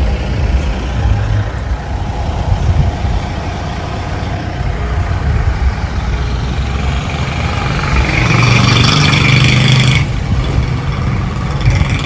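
A motor vehicle's engine running with a low rumble. It grows louder with a steady hum about eight seconds in, then stops suddenly about two seconds later.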